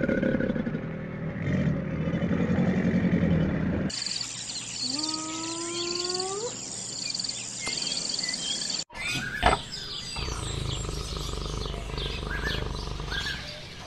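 A run of wild animal sounds in three cuts. First a loud, deep pulsing growl. Then a spotted hyena's single rising whoop with birds chirping behind it, then a sharp crack and a lion's low rumbling growl.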